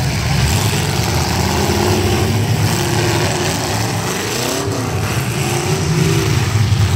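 Demolition-derby pickup trucks' engines running and revving, the pitch rising and falling.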